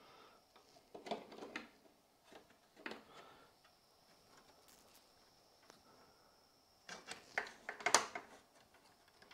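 Light clicks and knocks of a 3D-printed PETG enclosure column being set in place against a 3D printer's frame: a few scattered taps about a second in and near three seconds, and the loudest cluster about seven to eight seconds in.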